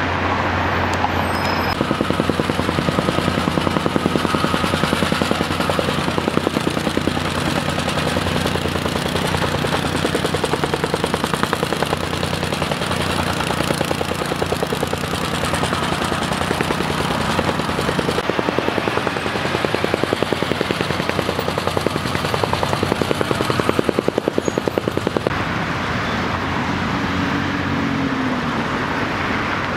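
A motor or machine running with a fast, even pulsing over a steady hum, which gives way about 25 seconds in to a plainer rumble of street traffic.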